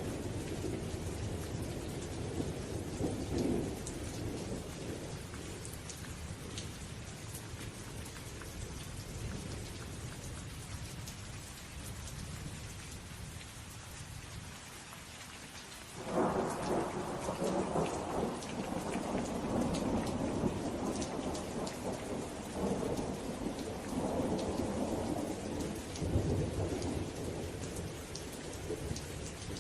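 Steady rain with rolling thunder. A low rumble dies away over the first half, then a new peal breaks in sharply about halfway through and rumbles on, swelling and easing, to the end.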